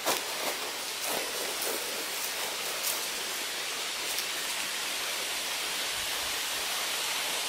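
Steady, even outdoor hiss, with a few faint clicks in the first few seconds.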